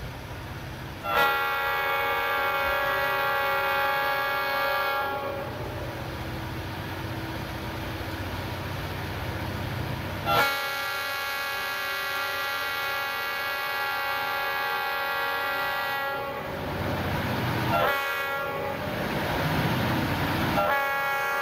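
Air horn of an approaching CSX diesel locomotive sounding the grade-crossing signal: a long blast, a longer one, a short one, and a final long blast starting near the end. A low locomotive rumble is heard between the blasts.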